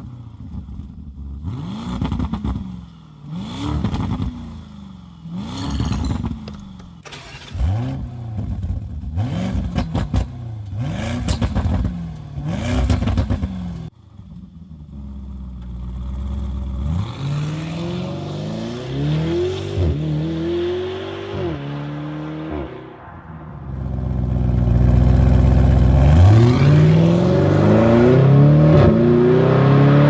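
Lamborghini Urus twin-turbo V8 on its stock exhaust in Corsa mode, started with a sudden flare, then revved in about seven quick blips, each rising and falling. It then pulls away and accelerates hard, rising in pitch and dropping back at each upshift, loudest near the end.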